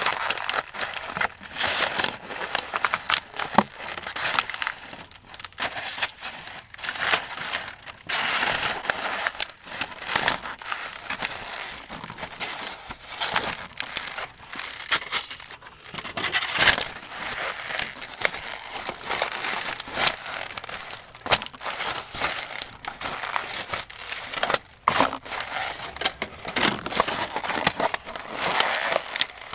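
Leather campus boot stepping on and crushing fast food garbage: clear plastic lids, takeout containers and paper wrappers crackling and crunching underfoot, with many sharp cracks of breaking plastic.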